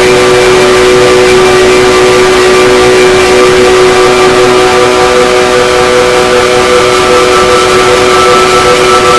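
Loud, steady motor noise: a dense rushing sound with several held whining tones over it.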